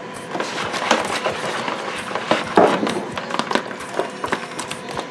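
Chicken drumsticks being tossed by hand in hot sauce in a plastic mixing bowl: irregular wet squishes and light knocks against the bowl, a little louder about a second in and again midway.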